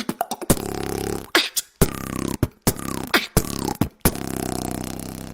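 A person beatboxing: sharp vocal percussion clicks and snares alternating with stretches of a buzzing, low hummed bass line.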